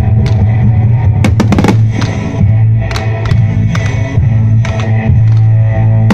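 Loud rock music playing over the show's loudspeakers, with several sharp bangs of fireworks bursting through it.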